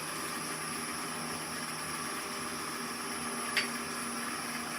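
Oneway 2436 wood lathe running with a green-wood spindle turning and no tool cutting, a steady motor hum. A brief squeak about three and a half seconds in.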